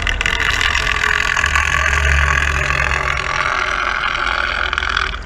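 Water vortex spinning in a blue 55-gallon drum, driven by a lily impeller at the bottom: a steady rushing of swirling water as the vortex draws air down its core to the impeller.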